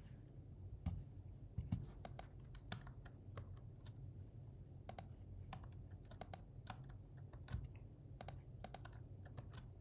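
Computer keyboard typing: irregular bursts of key clicks, a few heavier keystrokes with a low thump, over faint low room hum.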